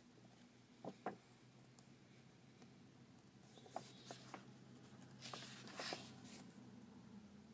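Quiet rustles and flicks of comic book pages being leafed through by hand: two soft flicks about a second in, then a run of rustling page turns from about four to six seconds in, over a faint steady hum.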